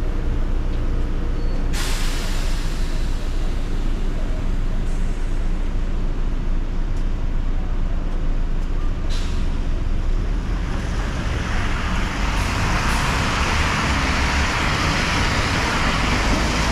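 Road traffic noise on a rain-wet road under a steady low rumble of wind on the microphone. About ten seconds in, a loud hiss swells up and stays, the sound of tyres on wet pavement.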